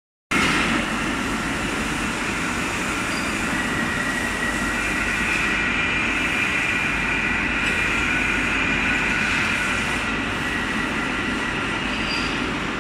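Machine-shop machinery running steadily: a dense, even noise with several high whining tones over it.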